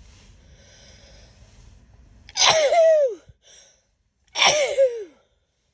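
A woman's sneeze fit: a drawn-in breath, then two loud sneezes about two seconds apart, each ending in a voiced cry that falls in pitch.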